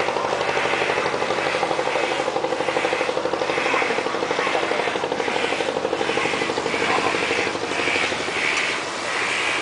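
A steady machine drone with a fast, even pulsing, and a hiss that swells and fades in a regular rhythm over it.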